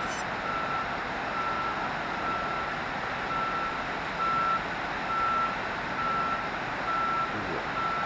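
An electronic beeper sounding a short beep at one steady pitch about once a second, over the steady rush of water from the dam's spillway.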